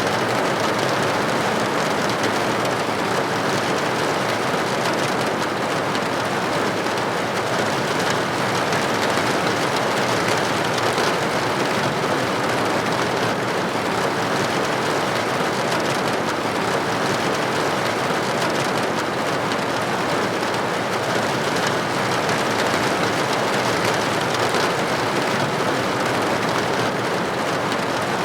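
Steady rain falling on a roof: an even patter of many drops that holds at the same strength throughout.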